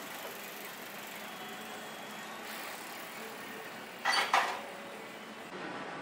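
Street ambience: a steady hiss of traffic along a shopping street. About four seconds in comes a brief, sharp double sound, two quick hits close together, louder than everything else.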